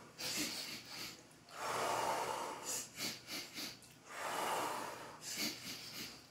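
A group breathing together in a set rhythm: three quick sniffs in through the nose, then one long exhale out through the mouth. The sniffs come three times and the long exhales twice.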